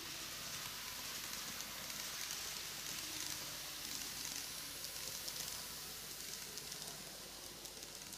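KATO N-gauge ED79 model electric locomotive and its coaches running on model track: a faint steady hiss with a low hum and light ticking of wheels.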